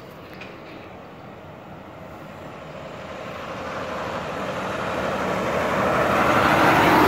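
Loaded log truck approaching along the road, its engine and tyre noise growing steadily louder.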